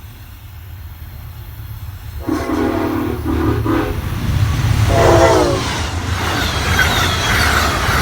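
Amtrak P42DC diesel locomotive approaching at speed and sounding its chord air horn in a few short blasts, then a louder blast that drops in pitch as it passes, followed by the rush and wheel clatter of the train going by close at hand.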